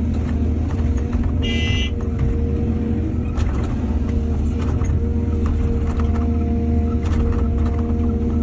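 Excavator's diesel engine running steadily under load, with scattered knocks and clanks and a brief high-pitched tone about a second and a half in.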